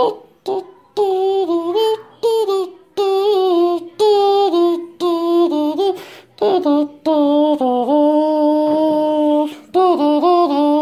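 A high voice singing a tune in short phrases, holding one long note for a few seconds in the second half.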